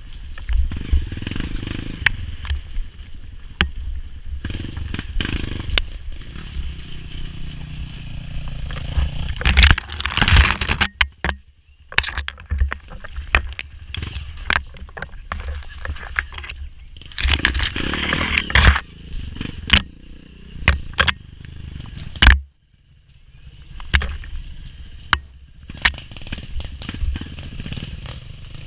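Dirt bike engine running and revving on rough ground, with branches and brush scraping against the bike and frequent knocks and clatter. Loud bursts of scraping come about ten seconds in and again near eighteen seconds, and the sound drops almost out twice, briefly.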